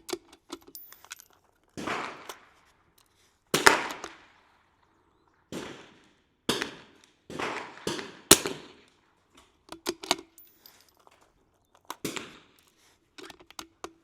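.22 LR rimfire rifle shots from the firing line. About eight sharp cracks come at irregular intervals of one to two seconds, each with a short echoing tail, with fainter clicks and pops between them.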